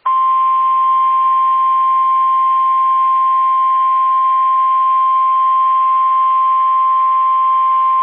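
Weather-radio warning alarm tone: a single loud, steady high tone of about 1050 Hz that comes on abruptly and holds without wavering. It signals that a warning message, here a severe thunderstorm warning, is about to be broadcast.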